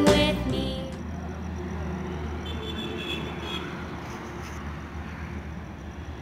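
A children's song ends about a second in, leaving a steady background hiss and rumble with no distinct events.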